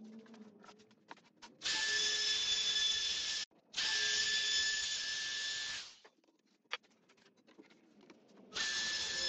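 Makita trim router running with a steady high whine as it cuts into oak plywood along a straightedge guide. It comes in loud stretches of about two seconds, stops for a couple of seconds with a few small clicks, and starts again near the end.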